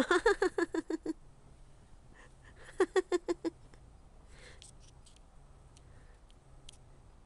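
A woman laughing in quick, even bursts, twice: a run of about ten at the start and a shorter run about three seconds in.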